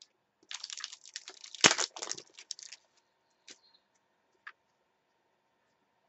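Trading-card pack wrapper crinkling as it is torn open for about two seconds, with one sharp crack partway through. A few faint clicks of cards being handled follow.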